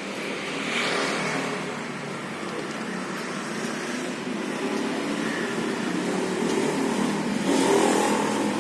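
Motor vehicle engine running steadily, with traffic passing, louder about a second in and again near the end.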